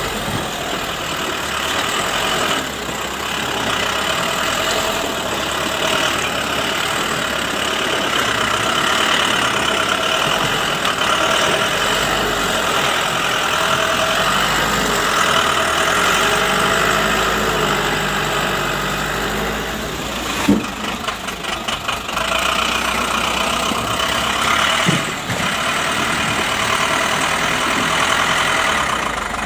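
Tata 407 light truck's diesel engine running steadily as the truck crawls along a muddy, rutted road. About twenty seconds in there is a sharp knock followed by a second or so of rattling, and a smaller knock a few seconds later.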